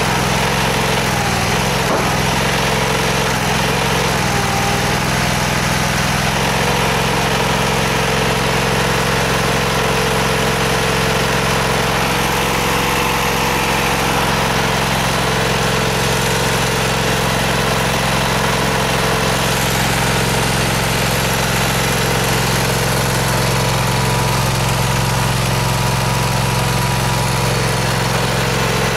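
Engine of a hydraulic stone splitter running steadily at idle, with a constant, even drone.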